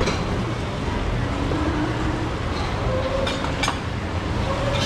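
Background noise of a working fish shop: a steady low rumble with faint voices, and two light clicks a little after three seconds in.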